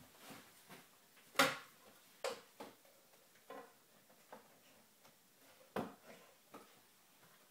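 Wooden picture frame tapping and scraping against the wall as it is straightened on its hook: a handful of light knocks, the loudest about one and a half seconds in.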